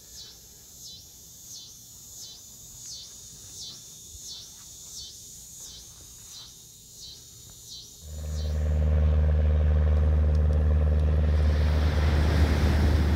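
Insects chirping in an even rhythm, about three pulses every two seconds. About eight seconds in this gives way abruptly to a loud, steady vehicle drone of engine and road noise.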